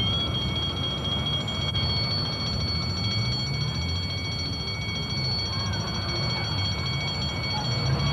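Street traffic with a Routemaster double-decker bus's diesel engine running as it pulls away, under a steady high-pitched whine from the early home video recording. A sharp click marks the start.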